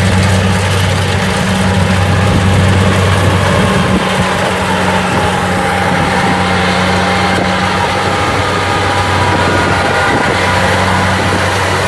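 Rice combine harvester running steadily at work: a constant engine hum with a steady higher machine whine over it.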